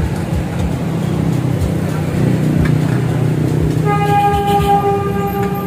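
A steady horn tone sounds for about two seconds near the end, over a steady low rumble and light clicks.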